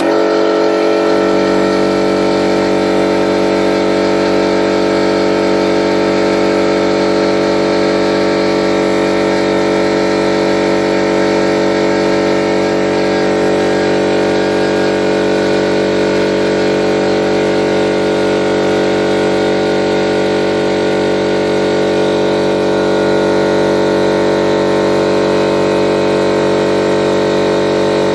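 50-litre air compressor running steadily while filling its tank, a loud, even motor-and-pump drone that holds one pitch throughout.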